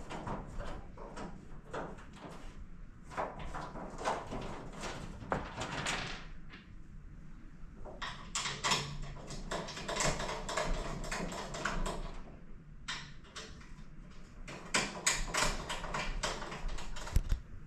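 Metal parts of a collapsible aluminium dog crate clicking, clinking and scraping as its side screws are taken out and fitted into the side rails, in three spells of quick clicks with short pauses between.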